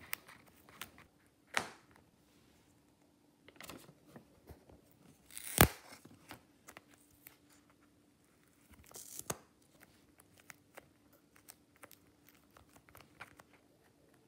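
A tape-covered paper doll and its paper pieces rustling and crinkling in the hands, in irregular bursts with scattered small clicks. There is one sharper snap about five and a half seconds in.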